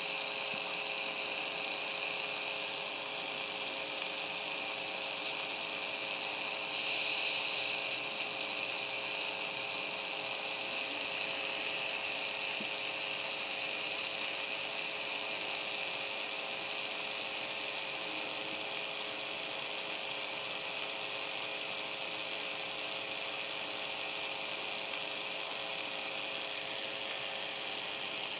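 Steady hiss and hum of radio reception noise between broadcasts, with a slightly louder rush of hiss lasting about a second some seven seconds in.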